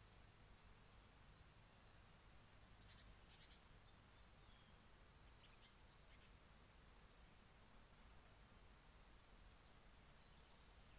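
Faint, high-pitched chirps of small birds, short notes scattered throughout, over near silence.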